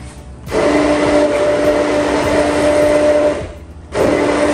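Handheld immersion blender running in a tall cup of liquid marinade: a steady whirring whine for about three seconds, a brief stop, then a second short burst near the end.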